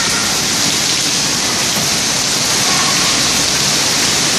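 Heavy rain falling, a loud steady hiss.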